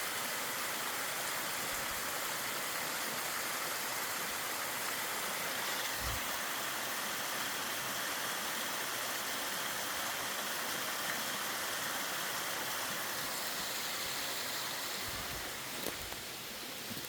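Mountain stream flowing: a steady, even rush of water, with a couple of soft thumps.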